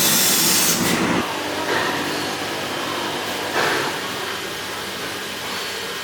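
6 kW fiber laser cutting machine cutting carbon steel sheet: a steady hiss of cutting gas and spatter. It is loud for about the first second, then drops to a quieter hiss with a couple of brief swells.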